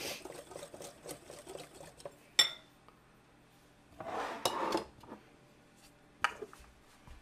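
Wire whisk stirring a liquid mixture in a glass bowl with light, rapid ticks, then a sharp ringing clink about two and a half seconds in as the whisk is laid against the bowl. Glass jars are then handled on the counter, with a scraping rattle around four to five seconds in and a knock near the end.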